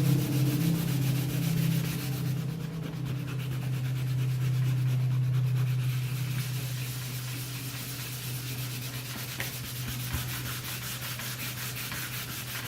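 Hand sanding of a damaged interior wall with 180-grit sandpaper: quick, regular back-and-forth rubbing strokes. The sanding cleans up the area before patching. A steady low hum runs underneath.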